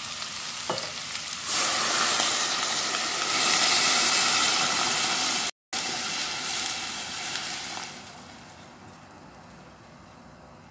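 Chicken broth poured in a stream into a hot stainless steel pot of sautéed cabbage and carrots, splashing and hissing as it lands. The pour starts about a second and a half in, breaks off for an instant midway, and tapers off after about eight seconds into a faint steady hiss from the pot.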